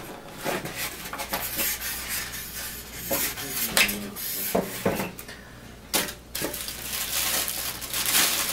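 Small metal parts clinking and rattling, with scattered clicks and packaging rustling, as scope rings and an Allen key are handled.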